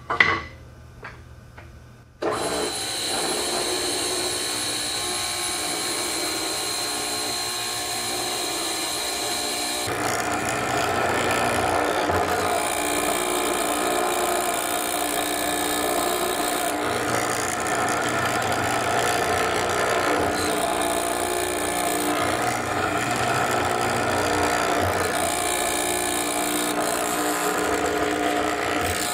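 A short sharp hit, then about two seconds in a hollow-chisel mortiser starts running steadily, its square chisel and auger boring into a hardwood table leg to cut a mortise. About ten seconds in the sound grows louder and rougher as the chisel works through the wood.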